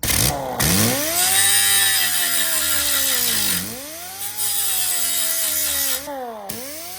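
Angle grinder spinning up and grinding down fresh welds on steel sheet metal. Its motor whine drops in pitch as it is pressed into the work and rises again as it is eased off, twice, over a steady grinding hiss.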